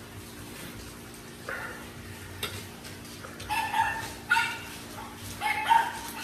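A dog yipping and whining in short, high calls, in quick groups of two or three, starting about halfway through and coming again near the end.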